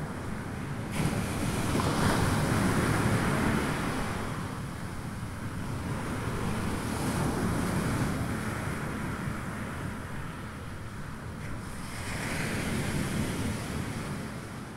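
Sea surf washing onto the shore with wind, the noise swelling and easing in slow surges and fading near the end.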